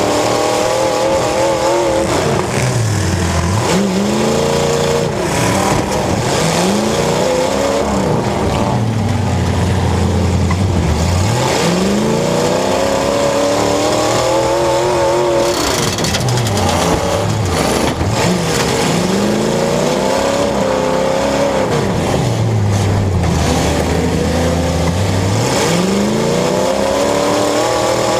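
Demolition derby cars' engines revving hard and falling back again and again, several at once, each rise and drop taking a few seconds.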